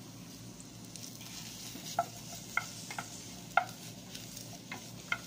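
Sliced mushrooms sizzling in olive oil in a nonstick pot while a spatula stirs them, knocking and scraping against the pot several times from about two seconds in.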